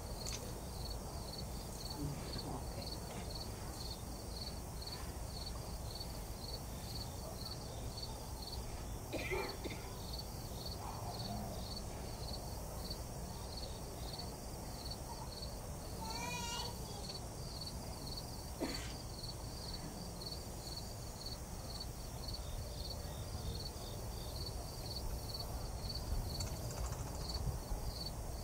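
Crickets chirping steadily outdoors, a high chirp repeated evenly about two to three times a second, over a low steady background hum.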